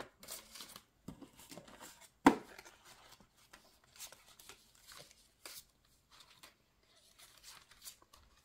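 Paper being handled and rustled at close range, with scattered small clicks and one sharp knock a little over two seconds in.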